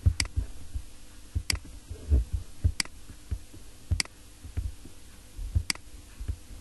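Computer mouse clicking: five sharp clicks spaced a second or more apart, with soft low thumps between them over a faint steady hum.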